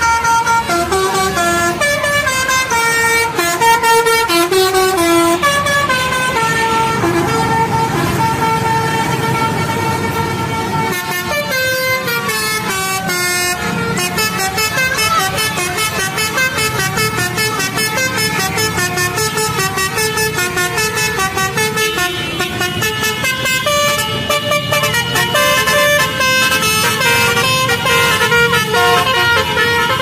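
Bus 'telolet' Basuri multi-tone horns playing a melody, loud pitched notes stepping up and down one after another, over traffic noise. The tune breaks off about eleven seconds in and a new run of notes begins.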